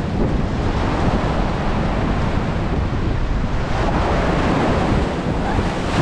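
Ocean surf washing up onto a sandy beach, a steady rush of breaking waves, with wind buffeting the microphone.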